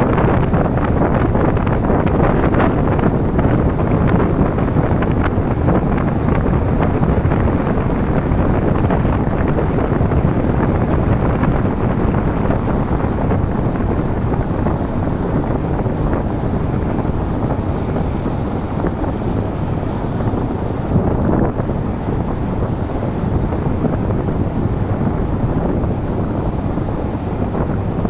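Steady wind noise on the microphone of a moving car, mixed with the low rumble of tyres on asphalt.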